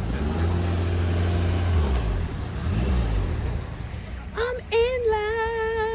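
Bus engine running with a low, steady hum, its pitch sagging a little about two seconds in. About four seconds in, a held high tone sets in with a slight waver.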